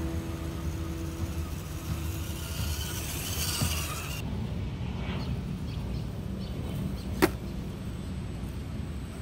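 Radio-controlled HSP Boxer crawler driving over grass, its electric motor and gears whining with the throttle over a steady low rumble, and a single sharp click about seven seconds in.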